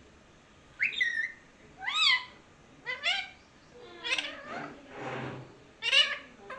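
Pet talking parrot calling in a run of about six short, high, bending calls, roughly one a second.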